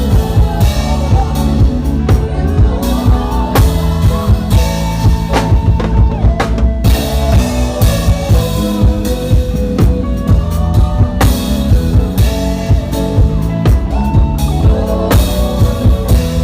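Instrumental gospel praise band playing: a drum kit keeps a steady beat with kick, snare and rimshot hits under a bass line and melodic instruments.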